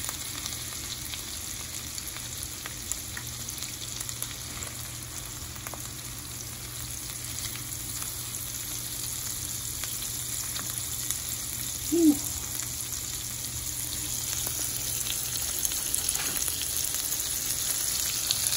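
Seasoned fish fillets frying in butter in a nonstick pan: a steady sizzle that slowly grows louder as more fillets are laid in. A brief, louder sharp sound about twelve seconds in.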